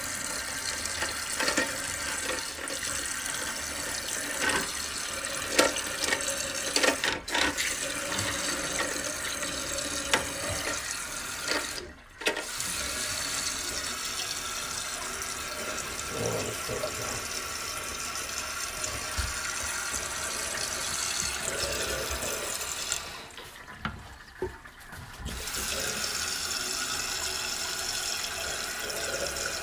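Water rushing into a toilet tank through a newly installed fill valve as the tank refills, with a few light clicks from the valve being handled. The rush breaks off briefly twice, near the middle and about two-thirds of the way through.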